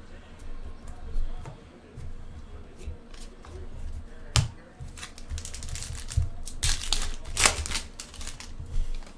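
Trading cards and their pack being handled: cards sliding and shuffling, a sharp click about midway, and crinkling rustles near the end.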